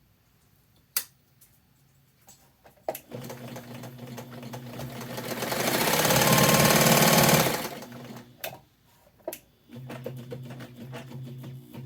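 Bernina 801 Matic Electronic sewing machine being run. After a couple of sharp clicks, it starts running steadily, speeds up to full speed and gets much louder midway, then slows and stops. After two more clicks it starts again and runs steadily at a lower speed.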